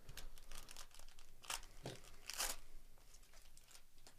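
Wrapper of a 2024 Topps Series 1 baseball card pack being torn open and crinkled by hand, in a few short rasps, the loudest about two and a half seconds in.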